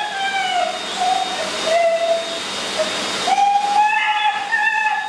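High-velocity pet dryer blowing air through a German Shepherd's thick coat: a strong hiss of air with a whistling whine that shifts up and down in pitch.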